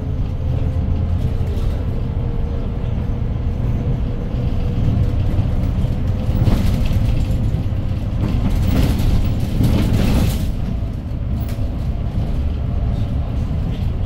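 Cabin sound of a 2013 Hyundai GreenCity city bus under way, its rear-mounted C6GA compressed-natural-gas engine and the road making a steady low rumble. A faint whine slowly drops in pitch over the first half, and bursts of hissing noise come about six and a half seconds in and again around nine to ten seconds.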